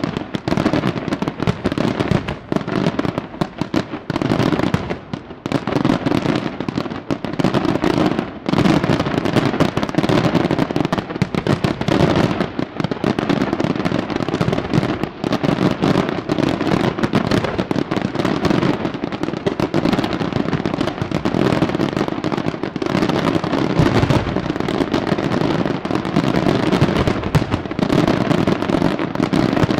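Barrage of aerial firework shells bursting in rapid succession, the bangs overlapping almost without pause.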